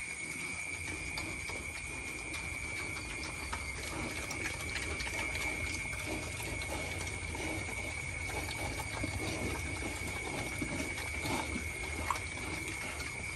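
Young pigs crowded at a feeder eating, their chewing and rooting in dry feed making many small irregular crunching clicks, with a steady high whine behind.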